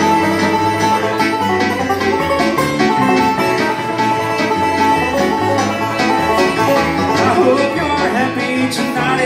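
Live bluegrass instrumental break: a banjo picking the lead over chords and bass notes from a Roland stage piano.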